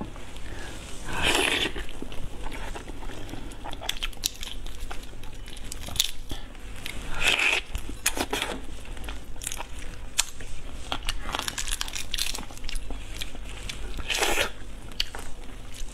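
Whole shrimp being pulled apart by hand: shells cracking and tearing in many small sharp clicks, wet with broth. Three louder bursts stand out, about a second in, around the middle and near the end, the last as a piece is bitten and sucked at the mouth.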